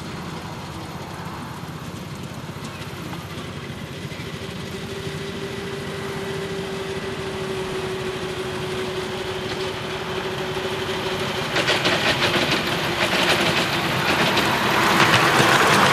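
Miniature railway train hauled by a small diesel-outline locomotive running toward and past close by: a steady mechanical drone that grows louder as it approaches. In the last few seconds a rapid clatter of wheels on the track joins in.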